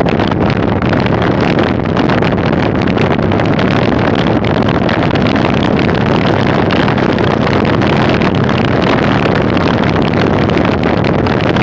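Bicycle tyres rolling over a gravel road with a steady crunching crackle, mixed with wind rushing over the microphone of a bike-mounted camera while riding.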